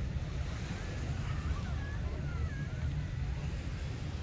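Wind buffeting the microphone in a steady low rumble, over the wash of surf.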